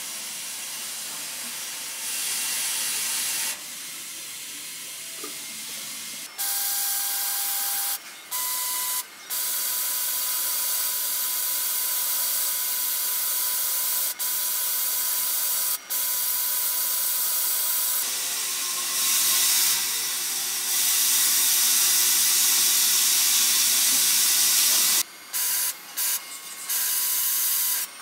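Takamaz XV-3 vertical CNC lathe machining small metal toy car wheels. A steady hiss of coolant spray and cutting runs over a faint steady whine from the spindle and tooling. The hiss drops and returns abruptly several times, most often near the end.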